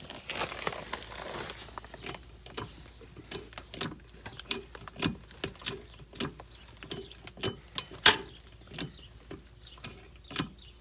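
Hydraulic bottle jack being pumped as it lifts the mobile home's floor beam: a run of sharp clicks and knocks about twice a second, with rustling at the start.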